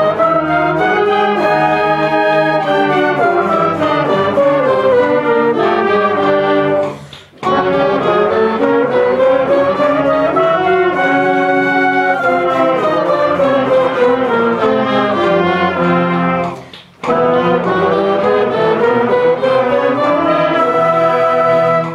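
Concert band, woodwinds and brass together, playing a sustained slurred warm-up in three long phrases, each rising and then falling in pitch. The whole band breaks off briefly to breathe together about seven seconds in and again about ten seconds later.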